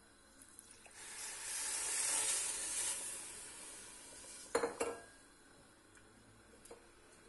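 Granulated sugar poured into a stainless steel pot, a hiss that builds and fades over about three seconds. Two sharp knocks against the pot follow.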